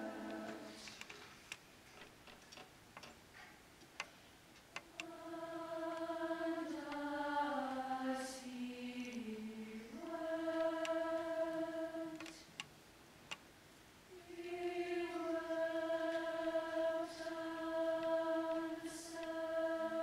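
Large mixed choir of teenage voices singing slow, held chords, with rests of a few seconds between phrases. In one phrase the voices step down in pitch together before settling on the next chord. Faint clicks sound in the rests.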